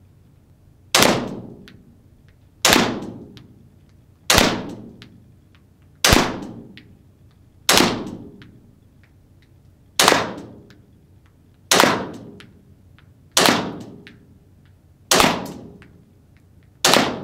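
ARMY TTI Combat Master gas blowback airsoft pistol fired in slow, aimed single shots, with BBs striking a cardboard target. There are ten sharp cracks about 1.7 s apart, each with a ringing tail that dies away.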